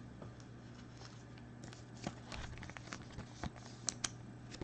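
Small clicks and light rustles of 2020 Bowman Chrome baseball cards being handled and slid one behind another, over a steady low hum. The sharpest click comes near the end.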